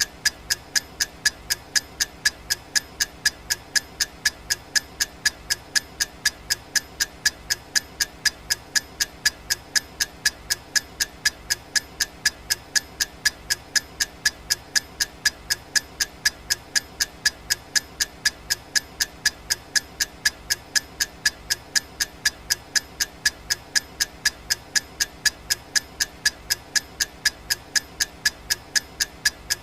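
Clock ticking sound effect: sharp, evenly spaced ticks at a steady even pace, marking off the seconds of a countdown timer.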